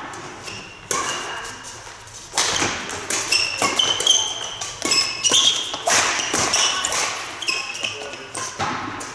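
Badminton rally: sharp racket smacks on the shuttlecock and short high squeaks of court shoes on the sports-hall floor, sparse at first and coming thick and fast from about two and a half seconds in.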